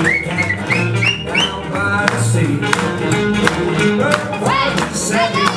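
Swing dance music for boogie-woogie dancing, played loud with a steady beat.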